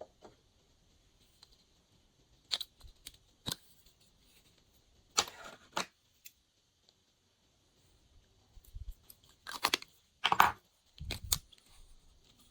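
Glossy slime being worked by hand, giving sharp sticky clicks and short crackling pops. A few come about two to three seconds in, a longer crackle around five seconds, and a cluster of louder ones near the end.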